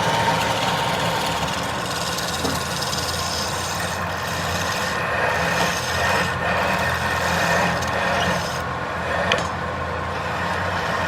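Wood lathe running, with a tool scraping against the spinning wood in a continuous rasping rub over the motor's steady low hum. One sharp tick about nine seconds in.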